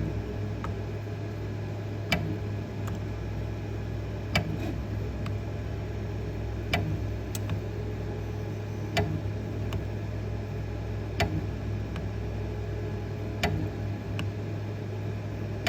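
Waterrun S513 benchtop soldering robot running through its soldering cycle: a steady low mechanical hum with a sharp click about every two seconds as it works from joint to joint.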